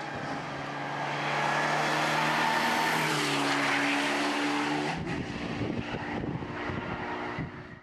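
Mitsubishi Lancer Evolution X rally car's turbocharged four-cylinder engine at high revs, the pitch stepping up about three seconds in as it accelerates toward the camera. About five seconds in, as the car goes past and away, the note turns rough and crackling, then fades near the end.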